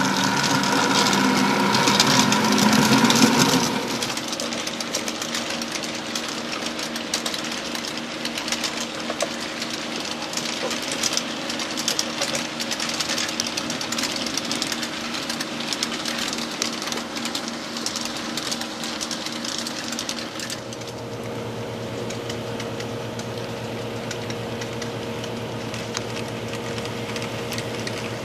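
HO scale model trains running on the layout: the locomotives' small electric motors and gears whirring, with rapid clicking of the wheels over the track. It is loudest in the first few seconds as the locomotives pass close, and a low steady hum joins about twenty seconds in.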